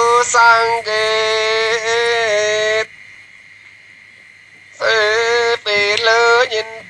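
Unaccompanied Yao (Dao) folk singing in the call-and-response style: a single high voice holds long, wavering, sliding notes. It breaks off about three seconds in for a two-second pause, then starts again.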